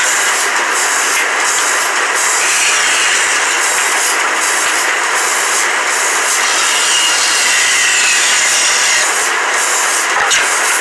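Band saw running and cutting through a thick wooden block: a loud, steady hiss of the blade in the timber with a faint whine, and a sharp click near the end.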